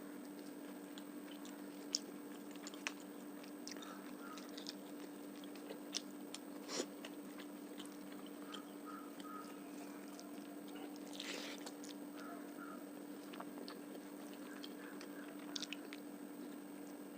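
Close-miked eating: chewing and biting on fish curry with rice and onion, with scattered sharp mouth clicks and smacks over a steady low hum.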